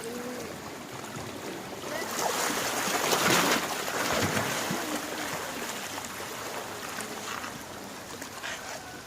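Sea waves washing on a beach, one wave swelling and breaking a couple of seconds in, then fading back to a steady wash.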